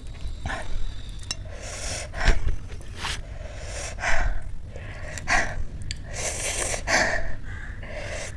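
A person gasping and breathing hard through the mouth, a string of sharp breaths about once a second, from the burn of eating very spicy pani puri.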